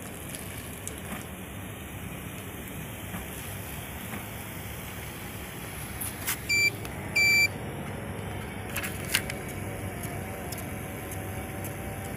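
A car's engine running as the car rolls slowly over a portable axle-weighing pad. A little past halfway come two short, loud electronic beeps with a few clicks around them, and near the end the scale's small ticket printer whirs as it prints the weighing slip.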